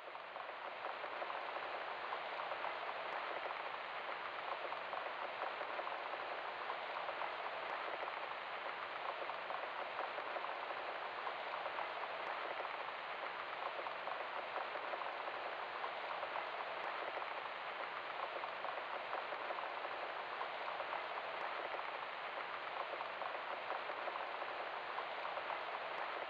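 Steady rain falling, an even hiss of many drops that swells up over the first second and then holds unchanged.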